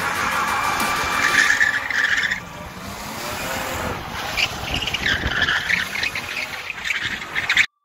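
BMW E36 Compact drifting: engine running under throttle while its tyres squeal in two spells as the car slides sideways, the first about a second in and the second around five seconds in. The sound cuts off abruptly near the end.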